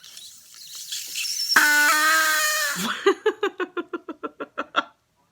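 A person blowing hard into one end of a part-peeled hard-boiled egg to force the egg out of its shell: a rush of breath builds into a loud, strained squealing tone. It then breaks into a fast run of short voiced breaths, about five a second. The egg does not come out.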